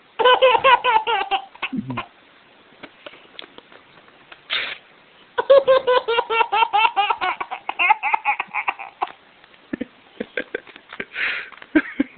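An 8-month-old baby boy laughing hysterically in rapid, high-pitched bursts of "ha", set off by paper being ripped. There is a short bout at the start and a longer one from about five to nine seconds in. Two brief tears of paper come about four and a half seconds in and near the end.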